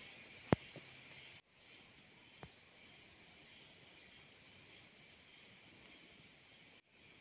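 Faint, steady high-pitched hiss of outdoor background, with a sharp click about half a second in and a fainter click about two seconds later. The hiss cuts out for an instant twice.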